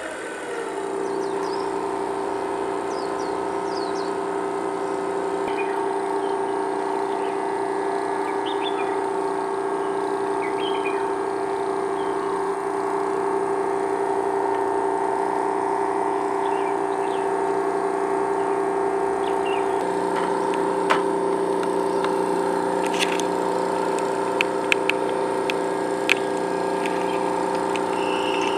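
KOWWER P1 portable gas generator starting up and then running steadily: a constant machine hum with a high whine. A few sharp clicks come in the second half as plugs are pushed into its outlets.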